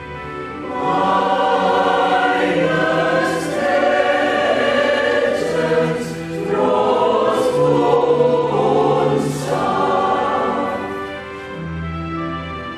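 Mixed choir of men's and women's voices singing a hymn over sustained instrumental accompaniment. The voices come in about a second in and drop away near the end, leaving only the held accompaniment notes.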